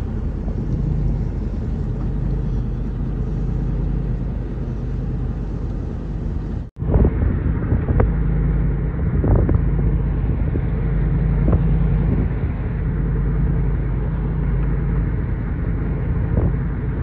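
Pickup truck driving: steady engine hum and road rumble. The sound breaks off for an instant about seven seconds in, then carries on with a few light knocks.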